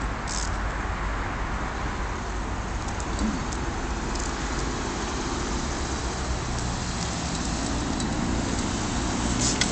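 Steady outdoor street noise from road traffic, growing a little louder near the end as a car passes.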